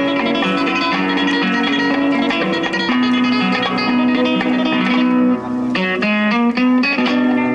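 Recorded guitar music played through a small street amplifier: a plucked melody over sustained lower notes, which the marionette mimes to.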